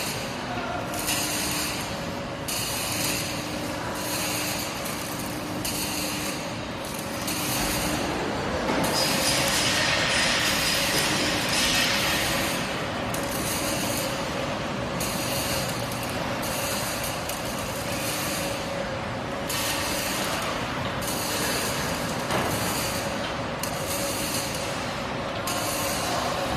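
H-beam assembly machine running with its CO2 tack-welding equipment: a steady hum under an even hiss, with a high hiss that pulses on and off about once a second. The hiss grows louder for a few seconds from about nine seconds in.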